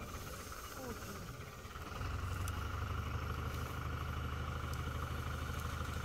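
Fiat 640 tractor's diesel engine running a wheat thresher, a steady low drone. About two seconds in it becomes louder and fuller and then holds steady.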